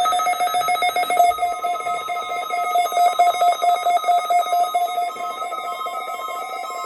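Electronic alert tone pulsing rapidly and evenly, a shrill multi-note warble like a telephone ring, sounding as the alert for an Emergency Alert System required weekly test.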